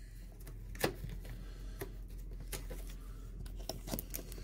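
A trading card being handled and slid into a clear plastic sleeve: soft scattered ticks and rustles, one sharper tick about a second in and a cluster of them near the end.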